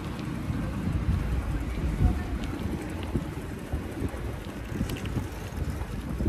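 Wind buffeting the phone's microphone: an uneven low rumble, with a few faint clicks.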